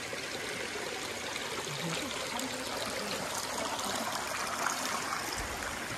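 Jungle stream flowing, a steady rush and trickle of water.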